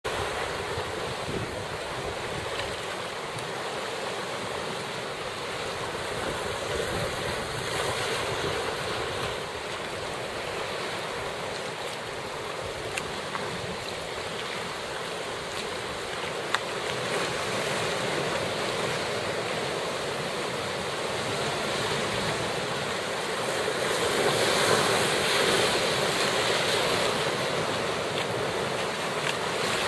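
Sea swell surging and breaking against rock in a narrow channel, with wind buffeting the microphone. The wash grows louder near the end as a bigger swell pushes through, and two brief knocks sound in the middle.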